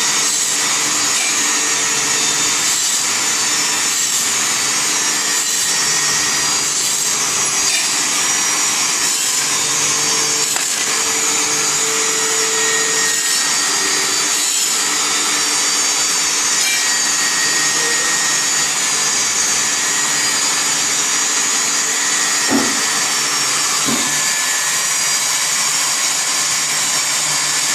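CNC machine running steadily: a loud, even high-pitched hiss over a steady hum, with two brief knocks about three quarters of the way through.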